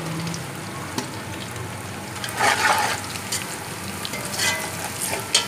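Browned onions and red chilli powder sizzling in hot ghee in an aluminium pot while a steel slotted spoon stirs them. The sizzle swells briefly a little past the middle, with a few light clicks along the way.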